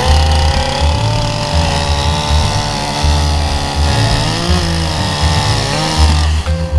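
Chainsaw running at high speed while carving pine, its engine pitch dipping briefly and recovering twice in the second half.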